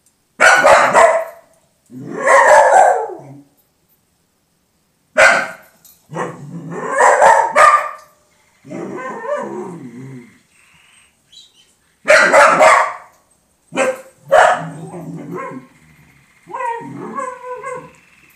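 Dog barking in repeated loud bouts, some short and single, some running on for a couple of seconds, with brief pauses between.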